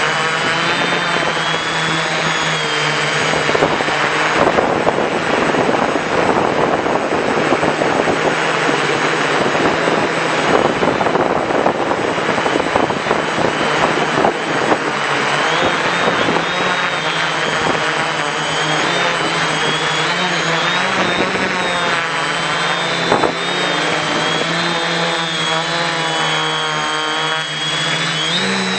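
Quadcopter's electric motors and balanced APC 11x4.7 propellers running in flight, heard from the camera on board: a steady buzz with a high whine that wavers in pitch as the throttle changes, over a rushing noise of air that is heaviest in the first half.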